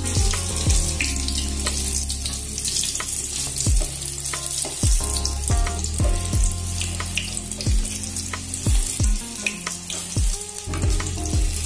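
Battered stuffed spiny gourds sizzling in hot oil in a wok, with repeated knocks and scrapes of a metal spatula against the pan as they are turned over.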